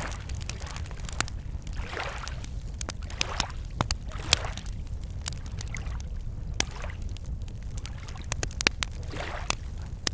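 Wood campfire crackling with frequent sharp pops, while small waves lap against the shore every second or two over a steady low rumble.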